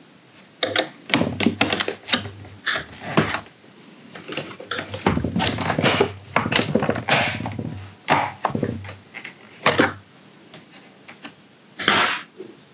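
Irregular scraping, rubbing and clicking of plastic as a screwdriver pries at the seams of a Roborock S50 robot vacuum's plastic housing, with a longer stretch of scraping in the middle.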